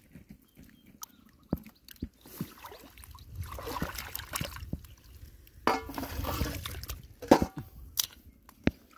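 Hands sloshing and splashing through shallow muddy water while digging in the mud, in two longer stretches, with scattered small clicks and knocks and one sharper knock near the end.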